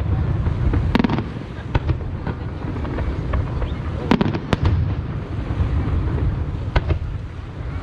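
Aerial fireworks going off: sharp cracks about a second in, two more close together just after four seconds and another near seven seconds, over a continuous low rumble of booming shells.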